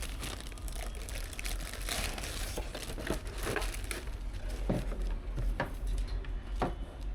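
Irregular crinkling and rustling, like crinkly material such as plastic being handled, with scattered small clicks and scrapes over a steady low hum.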